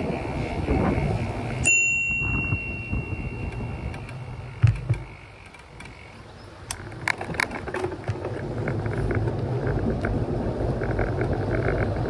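A bicycle bell rung once about two seconds in, its clear ring fading away over a few seconds, over a steady rush of wind on the microphone. A few sharp clicks follow later.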